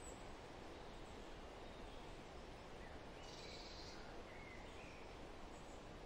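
Faint, steady outdoor background hiss with a few soft, short bird chirps in the middle.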